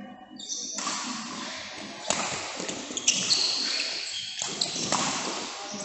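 Badminton being played: two sharp racket hits on the shuttlecock about a second apart, with short high squeaks of shoes on the court floor over a steady hiss.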